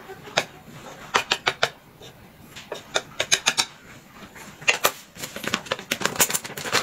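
Close-up eating sounds of a man chewing noodles: clusters of quick mouth clicks and smacks. Near the end a plastic seasoning packet crinkles as it is handled.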